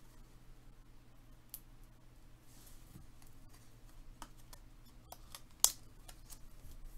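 Trading cards being handled by hand: faint sliding and tapping of cards against each other, with one sharp click about five and a half seconds in.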